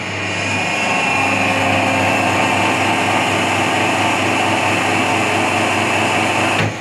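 Hydraulic plastic injection molding machine running: a steady low hum from its pump motor with a louder, noisy whine over it. The whine builds over the first second and cuts off sharply near the end, leaving the hum.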